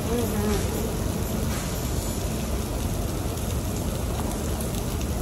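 Meat sizzling on a tabletop Korean barbecue grill over a steady rush of ventilation-hood noise, with faint background chatter.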